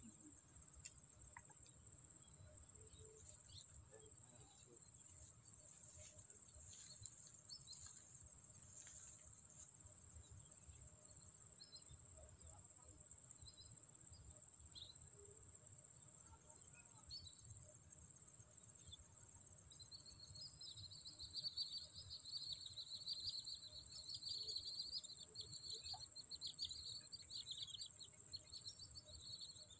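Crickets trilling in one steady, unbroken high-pitched note. About two-thirds of the way in, a second, lower wavering chirping joins and carries on.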